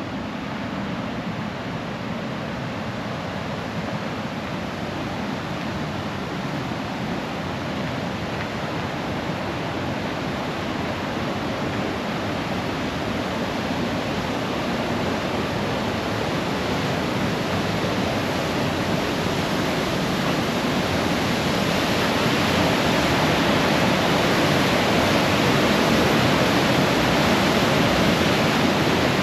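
Rushing river water, a steady wash of noise that grows gradually louder.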